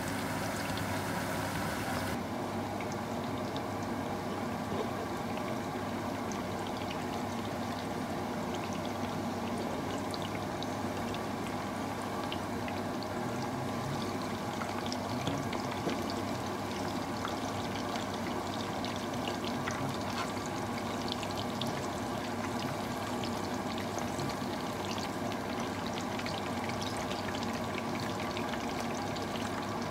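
Aubergine slices shallow-frying in hot oil in a pan: a steady sizzle full of small crackles and pops.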